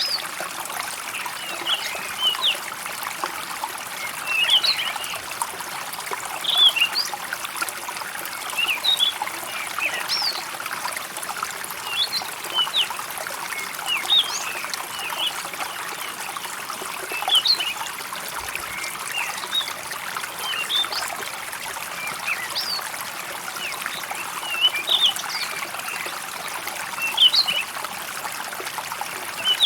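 Water trickling steadily, with short, high bird chirps coming every second or two.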